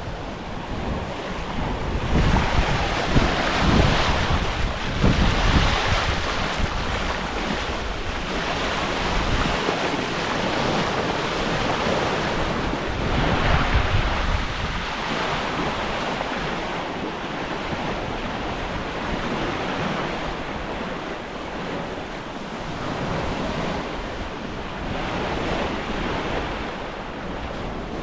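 Open-ocean waves rushing and washing around a sailing yacht under way, with wind gusting over the microphone; the rush swells and eases every few seconds.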